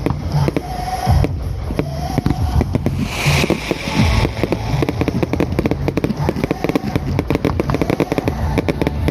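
Fireworks going off in rapid succession: a dense run of pops and crackles, with a hissing burst about three seconds in.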